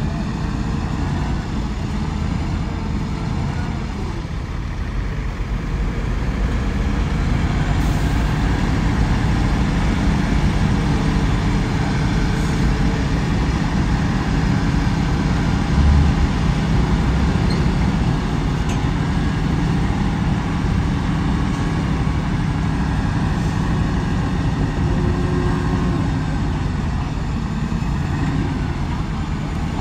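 Heavy diesel earthmoving machinery running steadily under load, a deep engine rumble, with one low thud about halfway through.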